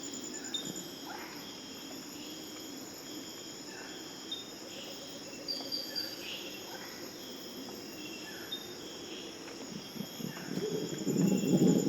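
Amazon rainforest insects buzzing and pulsing steadily, with a short falling call repeated every second or two, under faint distant howling of Purus red howler monkeys. The monkeys' low, rough howling swells up loud again near the end.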